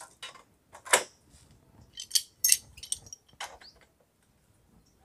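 Steel pipe wrenches clinking and clanking on a galvanised-iron pipe union as it is gripped and tightened. Several sharp metallic knocks, the loudest about a second in and a quick cluster around two to three seconds, dying away after about four seconds.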